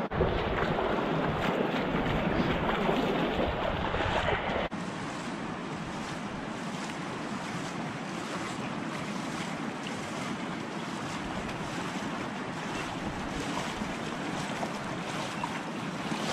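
Steady rushing of a fast river over a stony bed. For the first five seconds or so wind rumbles on the microphone over it, then stops abruptly, leaving only the even rush of the water.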